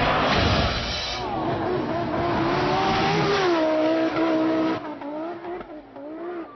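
Racing car engine revving hard, its pitch climbing and falling again and again through gear changes, after a loud rushing noise in the first second. About five seconds in it becomes much fainter, still rising and falling.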